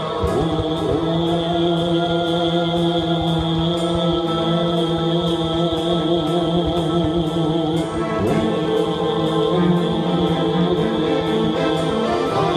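Buddhist sutra chanting: voices intone on long held pitches over a fast, even beat of sharp knocks, with a few low thuds about a second in and again around eight seconds in.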